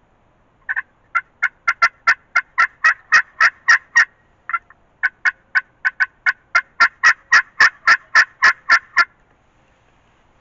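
A long, loud series of turkey yelps, about four a second, with a short break about four seconds in before the series resumes.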